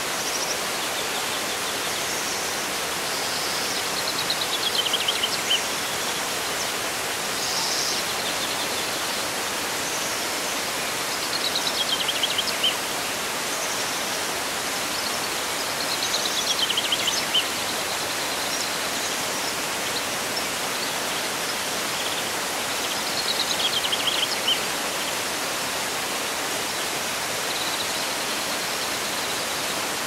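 Waterfall pouring steadily. A songbird sings a short, falling, rapid trill four times, about every six or seven seconds.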